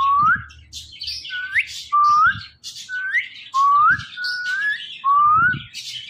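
Indian ringneck parrot whistling a short rising note over and over, about once a second, with fainter high chirping behind.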